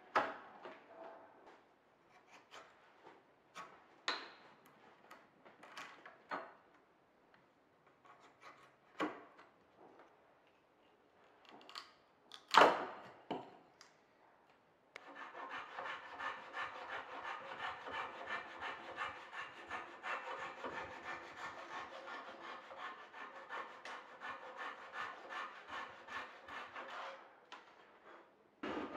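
Woodworking hand tools on hardwood. A chisel paring the wood gives scattered, separate cuts, the sharpest about 12 seconds in. About halfway through, a steady, fast back-and-forth scraping of a hand tool cutting wood takes over and stops shortly before the end.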